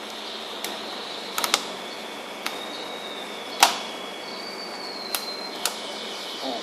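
Handling noise from fitting rubber rings and elastic bands onto an artificial vagina's rubber liner: a few scattered sharp clicks and snaps, the loudest a little past halfway.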